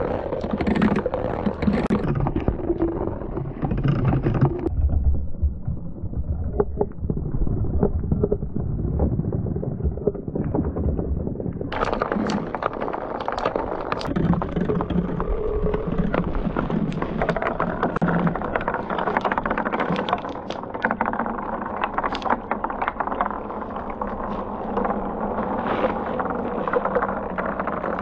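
Glass marbles rolling down wooden marble-run chutes, a steady rolling rumble with frequent clicks as they knock against each other and the track sides. The sound is muffled for several seconds and opens up again about twelve seconds in.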